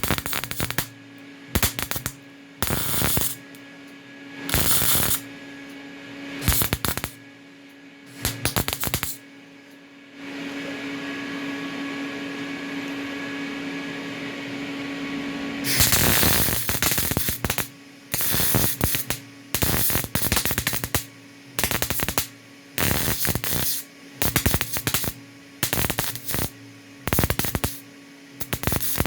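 Electric arc welding on a lawn tractor's steel muffler, a stitch weld laid down in short bursts of about half a second to a second with pauses between. A steady hum carries through, and in the middle the noise runs on evenly for about six seconds.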